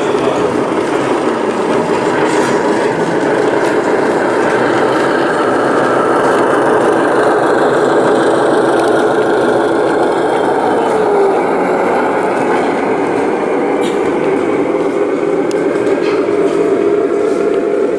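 Model train running along a layout's track, a steady running sound that holds for the whole stretch.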